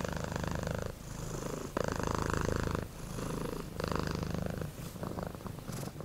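Domestic cat purring steadily, the purr swelling and dipping with each breath about once a second.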